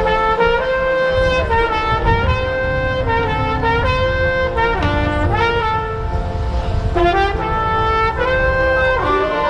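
Marching band brass section playing sustained chords with a moving melody line, the notes shifting every half second to a second.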